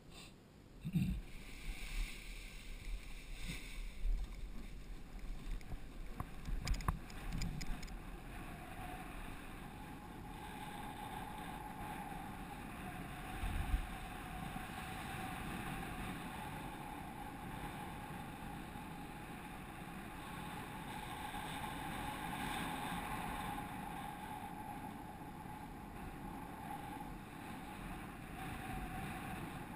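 Wind rushing over the camera's microphone during a paraglider's winch-towed launch and climb. A series of thumps and knocks in the first several seconds gives way, about eight seconds in, to steady rushing airflow with a faint steady hum.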